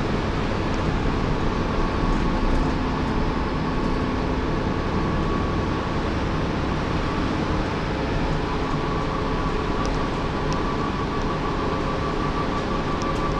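Dennis Trident 2 double-decker bus under way, heard inside the lower deck: steady engine and road noise. A high whine comes in more strongly about two-thirds of the way through.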